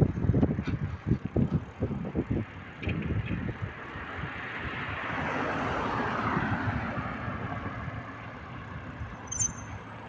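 A road vehicle passing, its noise swelling to a peak about six seconds in and then fading away. Irregular low thumps come in the first few seconds.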